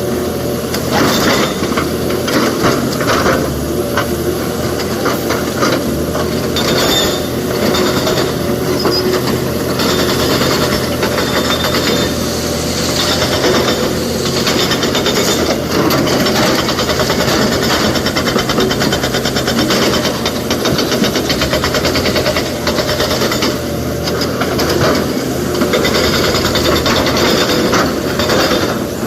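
Heavy excavator's diesel engine running under load, with scattered clatter and scraping of rock as it works.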